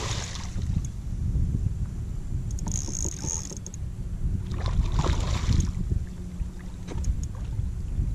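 Hooked redfish thrashing and splashing at the water's surface on a tight line, once right at the start and again about five seconds in, over a steady low rumble of wind on the microphone.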